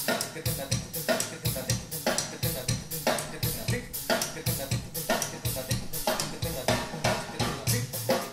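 Drum kit performance with a busy run of drum and cymbal hits and ringing cymbals above, played back through Ocean Way Audio Eureka hi-fi speakers and heard in the room.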